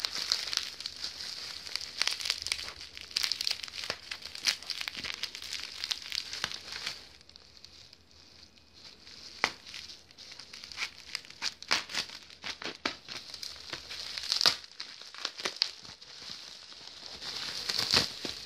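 Plastic bubble wrap crinkling as it is handled and cut open with scissors, with scattered sharp clicks. Dense crinkling for the first several seconds, a quieter stretch, then separate clicks and more crinkling near the end.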